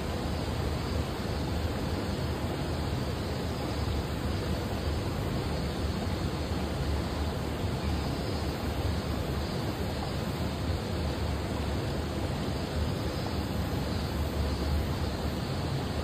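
Steady outdoor rushing noise: an even hiss with a heavier low rumble, unchanging throughout, with no distinct knocks or clicks.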